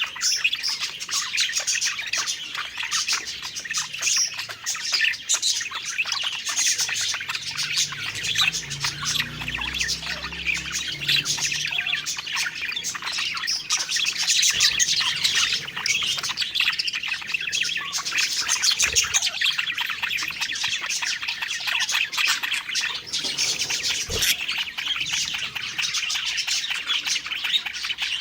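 Several budgerigars chattering and chirping without a break, a dense warble of quick, overlapping high notes.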